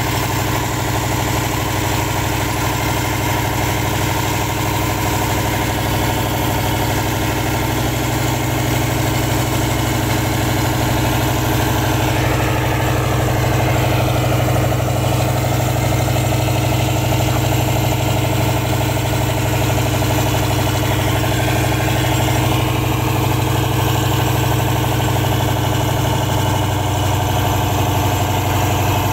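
Sand-dredging barge's engine running steadily, driving the pump that sucks up and discharges sand slurry.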